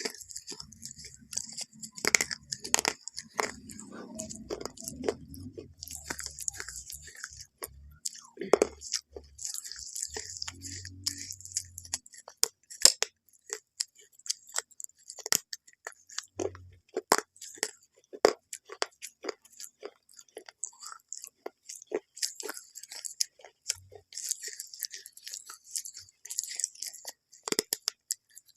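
Close-up crunching: many sharp, crisp crunches in irregular runs.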